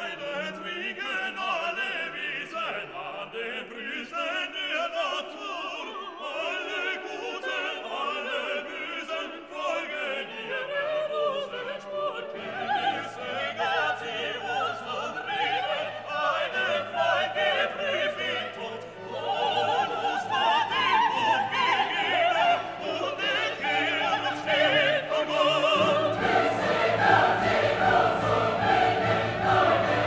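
Classical orchestral music with a choir singing, growing fuller and louder near the end.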